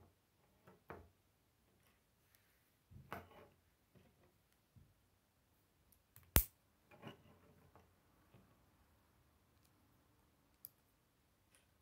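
Plastic K'nex pieces being handled and snapped together on a wooden tabletop: scattered faint clicks and plastic rattles, with one sharp snap a little past the middle.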